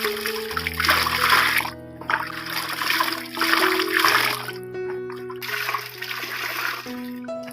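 Water splashing and running in three bursts that stop and start, over soft instrumental background music with held notes.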